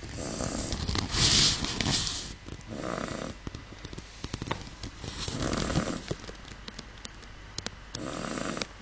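A Miniature Schnauzer snoring while fast asleep: four snoring breaths a second or two apart, the first the longest and loudest.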